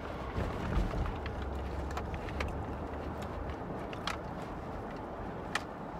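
Car interior noise: a steady low engine and road rumble that drops away about three and a half seconds in, with scattered small clicks and rustles.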